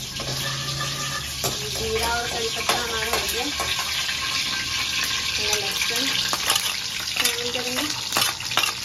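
Chopped garlic and curry leaves sizzling in oil in an aluminium karahi, while a metal ladle stirs and scrapes against the pan with repeated sharp clinks.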